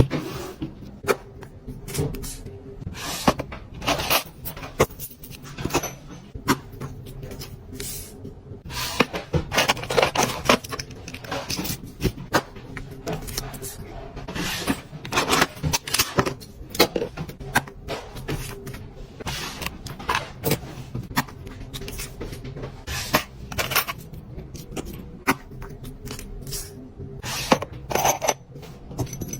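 Fingernails tapping and scratching fast on packaging: a dense, irregular run of sharp taps mixed with short scrapes.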